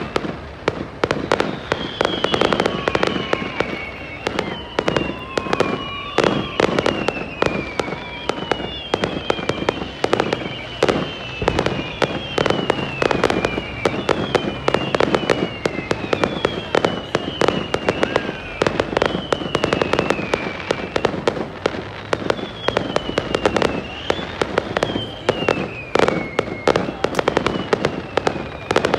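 Aerial fireworks bursting and crackling in quick, irregular succession, with a whistle falling in pitch every second or two from whistling shells.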